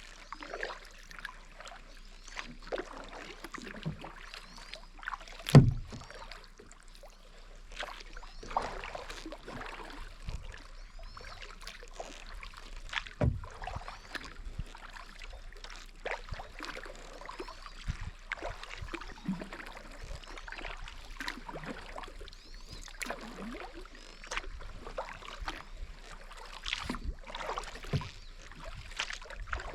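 Kayak paddle strokes splashing and dripping in the water, at an uneven pace. A single sharp knock about five and a half seconds in is the loudest sound.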